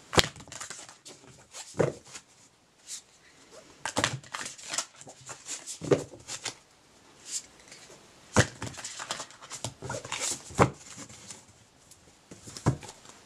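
A deck of oracle cards being shuffled and handled by hand: short rustling snaps of the cards, coming irregularly a second or two apart.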